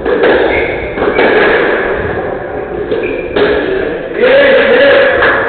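Squash ball struck by rackets and hitting the court walls during a rally, several sharp knocks echoing in the hall, with a couple of brief shoe squeaks on the wooden floor.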